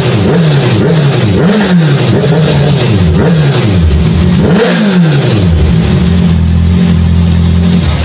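Big-bike motorcycle engine, already warmed up, revved in about six quick throttle blips that rise and fall in pitch, the biggest near five seconds in, then settling back to a steady idle.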